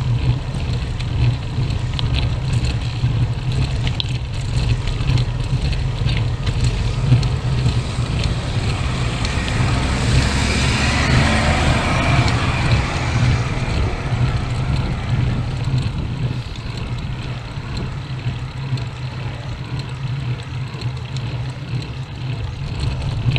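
Steady wind rumble on a bike-mounted camera's microphone while cycling uphill. About halfway through, a car overtakes, its engine and tyre noise swelling and fading over a few seconds.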